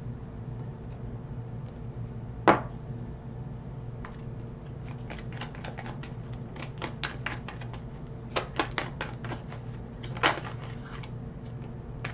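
A deck of tarot cards being shuffled by hand, with quick runs of card clicks from about five seconds in and single sharper slaps near the start and near the end. A faint steady hum lies beneath.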